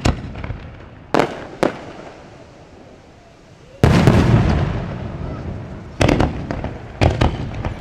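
Fireworks shells bursting overhead. Two sharp bangs come about a second in, then a loud boom near the middle that rumbles on and fades over a couple of seconds, then two quick pairs of bangs near the end.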